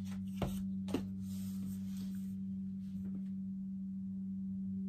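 A steady low hum, with two light clicks about half a second apart near the start and a soft brief rustle after them.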